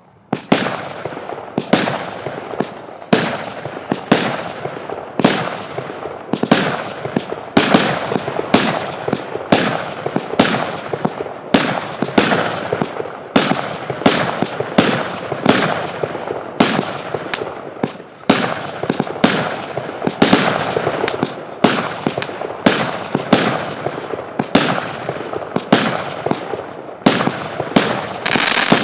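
A 49-shot 0.8-inch consumer fireworks cake firing shot after shot: a steady series of sharp bangs, one to two a second, with crackle between them.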